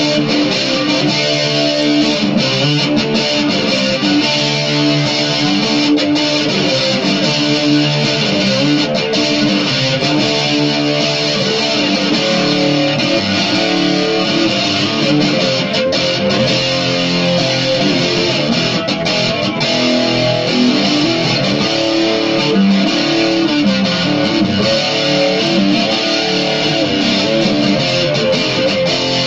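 Electric guitar playing a dark rock piece without a break.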